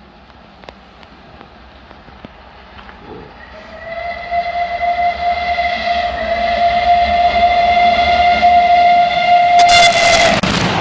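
An approaching train sounds one long, steady whistle note for about seven seconds over its growing rumble. Near the end a loud burst of rushing noise cuts across it.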